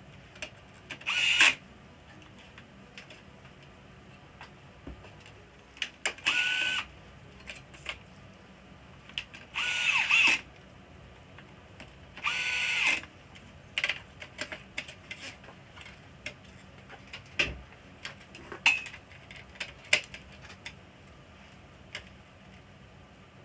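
Small electric screwdriver running in four short bursts, each under a second, with its whine dropping as it stops, driving screws in the casing of an LCD television; light clicks and taps of handled screws and panels come in between.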